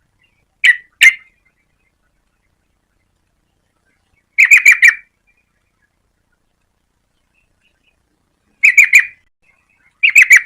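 Yellow-vented bulbul calling: two short separate notes, then bursts of four or five rapid notes every few seconds, with clean silence between them.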